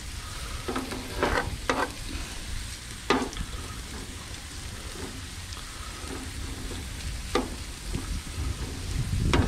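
Diced fatty ham sizzling as it fries and renders its fat on a hot grill surface, with a plastic spatula scraping and stirring it a few times.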